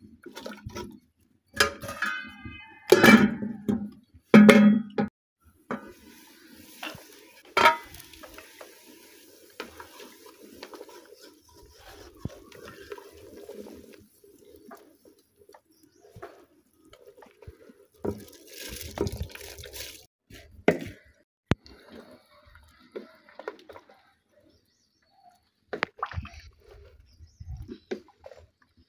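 Wooden spoon stirring and scraping in an aluminium pot of hot broth, with liquid sloshing and occasional knocks against the pot's side.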